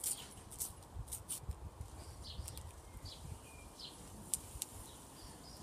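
Faint rustling and clicking of paper sticker packets and stickers being handled, with a few soft low thumps about a second in.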